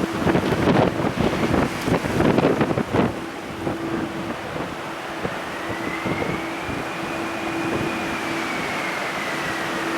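Strong typhoon wind gusting hard against the microphone for the first few seconds. Then a jet airliner's engine whine comes in about halfway through, rising slightly in pitch and then gliding down as the aircraft passes.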